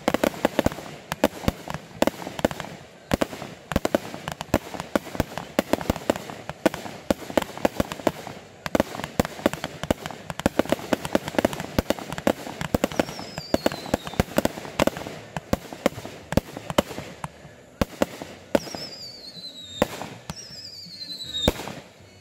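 Aerial fireworks bursting in quick succession, a dense run of bangs and crackles. A few falling whistles cut through in the second half.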